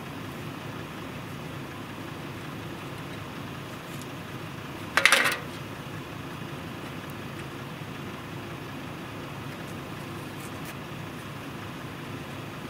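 Steady low background hum, with one brief clatter about five seconds in, consistent with a metal-framed sifting screen being set down on the ground.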